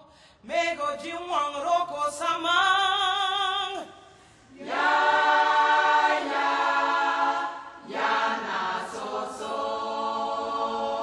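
Voices singing a cappella, with no instruments: three long phrases with vibrato on the held notes, separated by short breaths.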